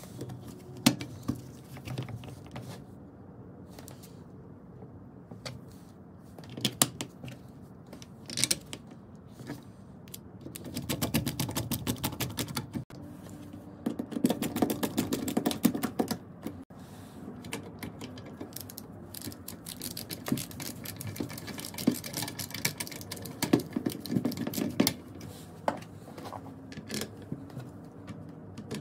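Screwdriver driving screws into a circular saw's plastic handle housing, heard as several runs of rapid clicking lasting a few seconds each. Sharp knocks of the housing halves being handled and fitted together come before them.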